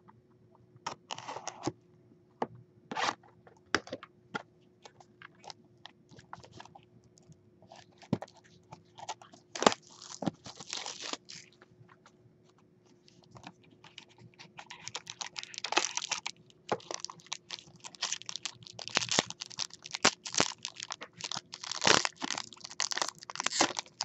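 Plastic wrap on a cardboard card box being slit and peeled, with scattered crinkles, scrapes and clicks. From about 14 seconds in, denser crinkling and tearing as a foil-wrapped card pack is torn open.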